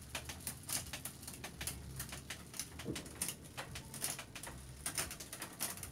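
Bicycle rear wheel spinning on a repair stand with the chain running through the rear derailleur and cassette: a rapid, irregular clicking of chain and cogs.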